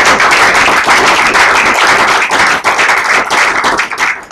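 Audience applauding: dense clapping that thins out to scattered single claps near the end.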